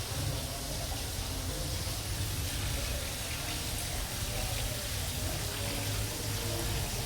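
Aquarium water running and splashing steadily, with a low hum underneath.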